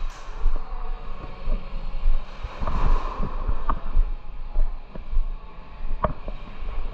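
Irregular low thumps and rustling from a player moving with a body-worn camera during an airsoft game, with a few sharp clicks, the clearest two about halfway and near the end.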